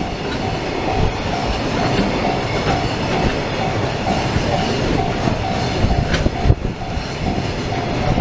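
Freight train hauled by an EF65 electric locomotive rolling past at a level crossing: a steady heavy rumble of wheels with occasional sharp clacks over rail joints. A Japanese level-crossing warning bell keeps ringing in a short repeating ding over the train noise.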